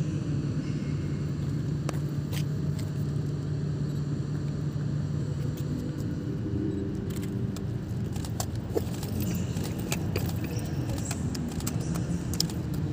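Electric locomotive approaching slowly along the track: a steady low rumble with scattered clicks and rattles, which grow more frequent in the second half.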